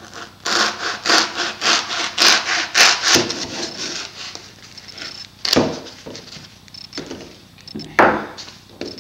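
Hacksaw cutting through a foam pool noodle in quick back-and-forth rasping strokes, about four a second, easing off after about three seconds. Two sharp knocks follow, one about halfway through and one near the end.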